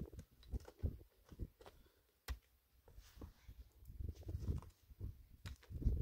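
Stones being handled and set down on dry earth, with footsteps and scattered clicks and knocks; one sharp stone-on-stone clack about two seconds in.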